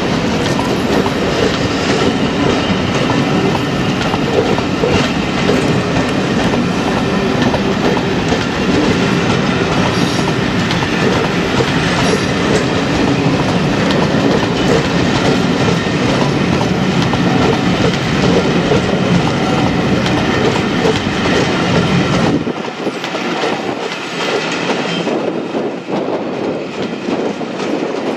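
A train running past on the track, loud and continuous. About 22 seconds in, its low rumble drops away sharply and it becomes quieter.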